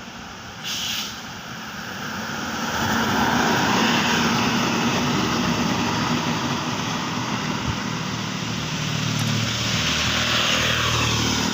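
Buses driving past on a road: a brief hiss about a second in, then one vehicle passes loudly about three to four seconds in, and another approaches near the end with a steady low engine hum.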